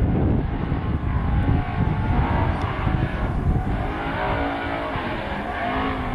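Engine of a distant Chevy-powered open-wheel hill-climb race car, its note rising and falling as it climbs through the gears from about three seconds in. Wind buffets the microphone throughout.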